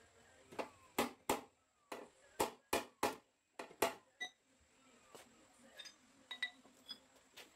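Hammer blows on car body metal: about ten sharp metallic knocks in quick succession over the first four seconds, then several fainter, sparser taps, as a bent car frame is beaten straight.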